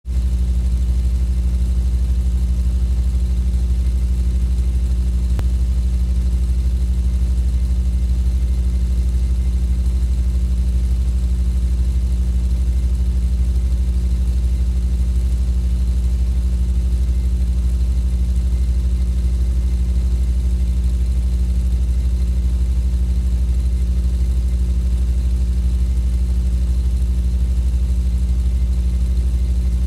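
Super 8 film projector running: a steady, unchanging low motor hum.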